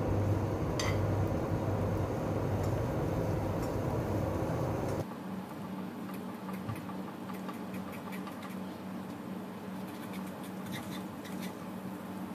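Butter melting in a hot nonstick wok and starting to sizzle, with small crackles and pops, while a spatula pushes it around the pan. A low hum in the first five seconds cuts off suddenly.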